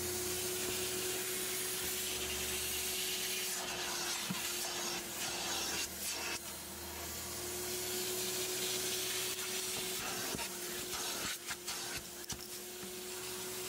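Aqua Pro Vac carpet extractor running while its clear upholstery wand is drawn across a cloth car seat: a steady motor hum with the rushing hiss of spray and suction, and a few short clicks.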